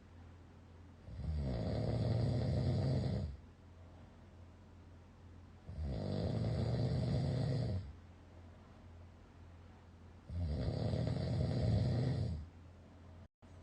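A person snoring very loudly in sleep: three long snores, each about two seconds, coming every four and a half seconds or so, with much quieter breathing between them.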